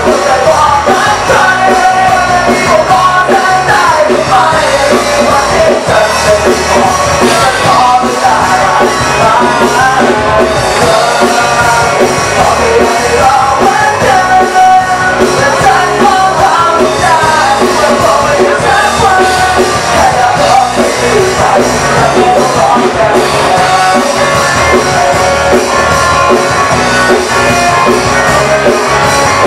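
A live rock band playing loudly, with a singer singing into a microphone over electric bass and the rest of the band.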